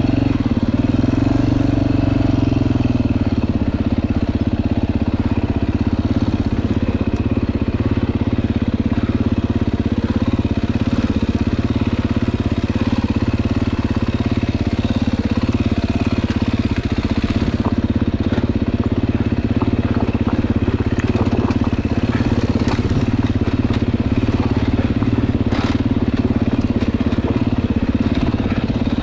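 Dirt bike engine running at a fairly steady speed while riding, with a small dip and pick-up in revs about two seconds in, and light ticks and clatter over it.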